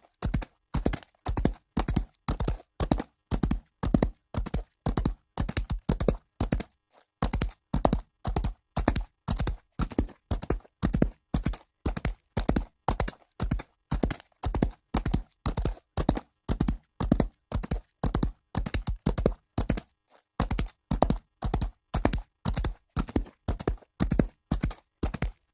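Horse hooves galloping on dirt: an even run of hoofbeats, about three a second, with brief breaks about seven and twenty seconds in.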